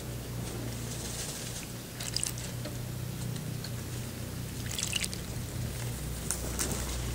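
A European robin bathing in a shallow metal tub of water. There are brief bursts of splashing about two seconds in, around five seconds and just after six seconds, over a steady low hum.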